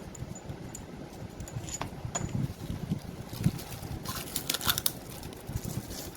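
Tools and metal parts clinking during hands-on disassembly of a compressor: a few light, ringing metallic ticks, then a brief clattering rattle about four seconds in, over low handling noise.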